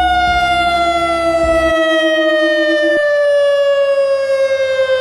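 Federal Signal Modulator electronic outdoor warning siren sounding one long tone that slowly falls in pitch.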